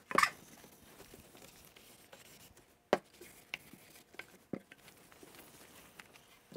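A cloth rubbing over an oiled wooden side table to wipe off excess Danish oil: a faint rustle, broken by a sharp knock just after the start and another about three seconds in as the wooden table is tipped and set back on the bench, with a few lighter taps between.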